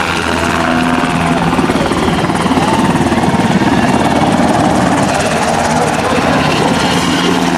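UH-60 Black Hawk helicopter flying low overhead, its main rotor beating rapidly and steadily. It is loudest around the middle as it passes directly above, then banks away.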